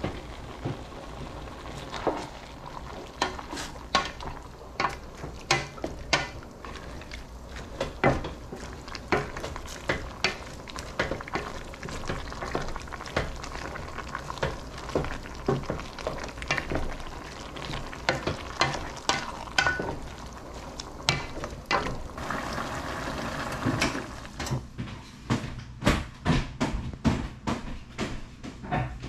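Wooden spatula stirring vegetables and meat in a stainless steel pot, with repeated clacks of the spatula against the pot's side over a steady sizzle. The knocks come faster near the end.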